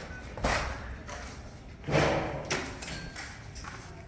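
A few dull thuds and knocks, the loudest just before two seconds in.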